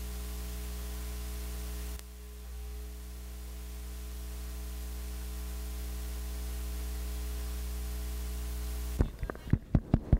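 Steady electrical mains hum with hiss on an open broadcast audio feed. About nine seconds in the hum cuts off suddenly and a quick run of sharp knocks follows.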